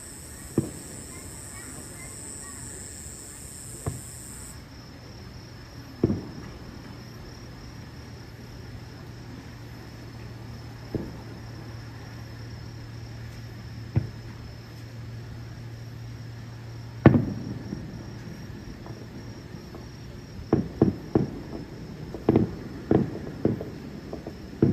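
Distant aerial firework shells bursting, single bangs every few seconds with the loudest about 17 seconds in, then a quick string of bursts near the end. Insects trill steadily underneath.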